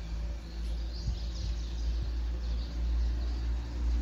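A few short bird chirps over a steady low rumble of outdoor background noise.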